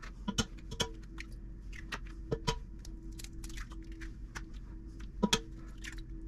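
Chicken eggs being cracked one after another on the rim of a cooking pot: sharp taps of shell on the rim, mostly in quick pairs, three or four times, over a faint steady hum.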